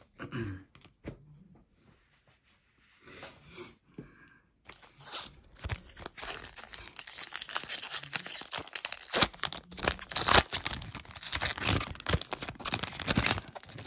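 Foil wrapper of a Topps Chrome trading-card pack being torn open and crinkled by hand. It starts with a few faint clicks, then about five seconds in turns into a dense crackling rustle that goes on until near the end.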